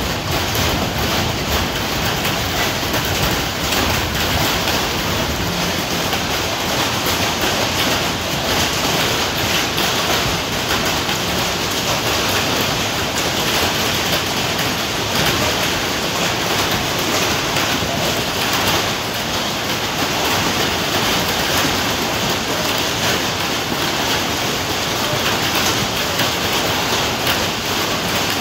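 Hail falling hard: a steady, dense clatter of many stones striking the field and stands.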